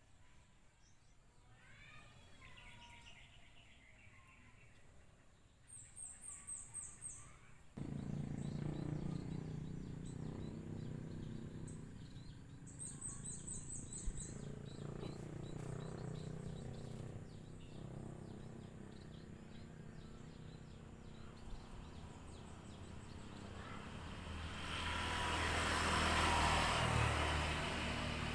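Small birds chirping in short repeated trills. About eight seconds in, a steady multi-tone hum starts suddenly, which fits the FIMI X8 SE drone's motors spinning up. Near the end a rushing noise swells and fades.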